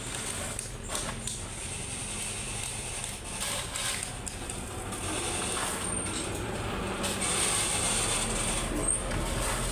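Steel shovel scraping into a pile of crushed gravel, with stones clattering, stroke after stroke. A truck engine's rumble builds in the last few seconds as a cement mixer truck drives past.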